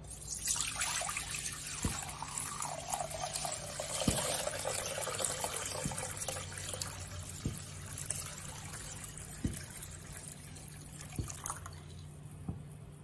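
Palm sap (padaneer) poured in a steady stream into a large metal kadai, splashing and frothing as it fills the pan; the pour stops near the end.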